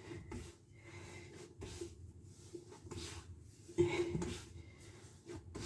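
Hands kneading soft bread dough on a countertop: quiet rubbing and pressing sounds, with a louder brief sound about four seconds in.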